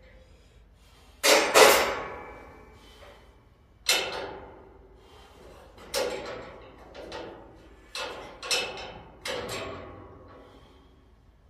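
Sharp metallic clanks from steel pallet racking being worked on: about nine irregular strikes, each ringing briefly, with the loudest two close together about a second in.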